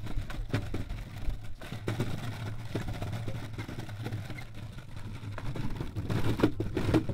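An Onda longboard's 6-inch wheels rolling across the planks of a wooden footbridge: a steady low rumble broken by irregular knocks as the wheels cross the gaps between boards.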